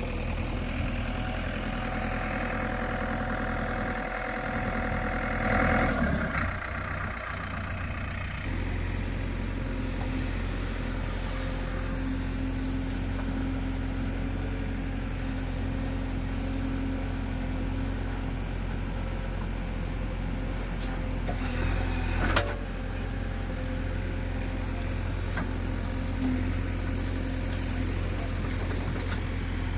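JCB 3DX backhoe loader's diesel engine running steadily, louder for a moment about six seconds in, with one sharp knock a little after twenty seconds.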